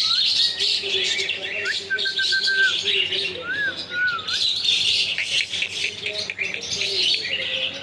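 Pet parrots chattering and chirping nonstop, with a few clear whistled notes, some held level and some rising and falling.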